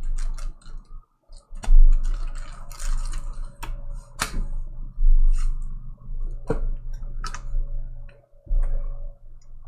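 Scattered handling clicks and taps at irregular intervals, over a low steady hum.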